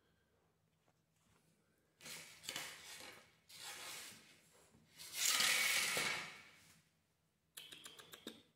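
A Fila Brasileiro puppy tugging at a towel and a plastic bag on a tiled floor: several bursts of rustling and crinkling starting about two seconds in, the loudest around five seconds in, then a run of quick clicks near the end.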